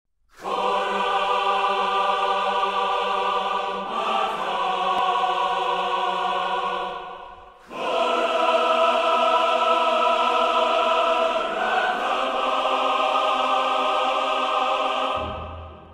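Background music of long held chords in two swells, with a short dip between them, fading out near the end.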